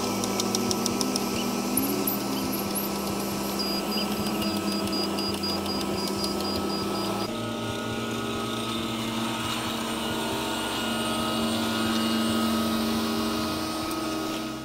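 Diesel engines of heavy earthmoving machinery running, a steady drone with light ticking in the first couple of seconds. About halfway through the drone changes abruptly to another machine's engine note.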